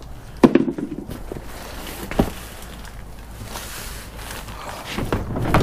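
Handling noise from a heavy rolled rubber truck bed mat in plastic wrap: a sharp knock about half a second in, another about two seconds in, and rustling that grows louder near the end.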